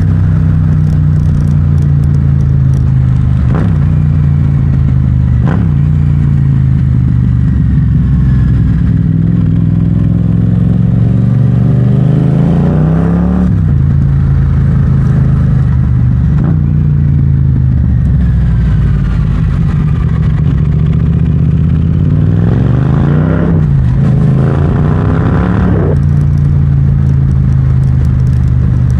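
Yamaha MT-07's parallel-twin engine running through an Akrapovic exhaust while the bike is ridden. The engine note holds steady for long stretches. Twice it climbs as the bike accelerates and then drops sharply, with several more sudden drops in pitch that mark gear changes.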